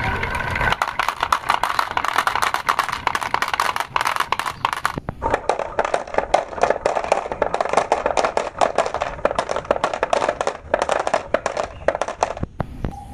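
Glass marbles rolling down a wooden track of curved pockets, clacking against the wood and each other in a fast, dense rattle, and dropping into a plastic toy dump truck's bed. There is a short break about five seconds in.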